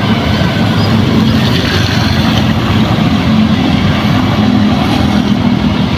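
A vehicle's engine running steadily as it drives through floodwater, a constant low hum under an even rushing noise of water.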